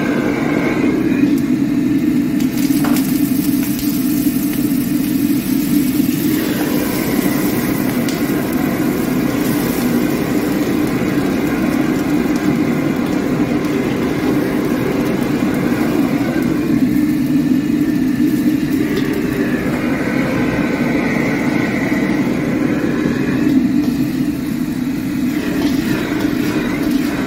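Commercial wok burner running steadily at high flame. Over it come stretches of sizzling food and a metal ladle scraping in a carbon-steel wok as fried rice is stir-fried and tossed.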